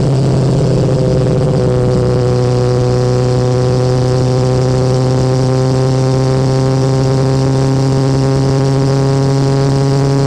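BMW S1000R's inline-four running through its stock Akrapovic exhaust at steady revs while riding. The exhaust note holds one steady pitch throughout.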